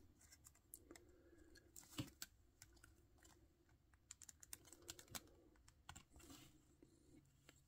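Faint, scattered small clicks and taps of hard plastic as wings are handled and pushed into a Can-Cell creature action figure, one slightly louder click about two seconds in.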